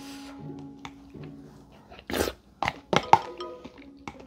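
Chopsticks clicking and scraping against a clear plastic takeout tub as it is emptied, with a few sharp clicks about two to three seconds in. Soft background music plays underneath.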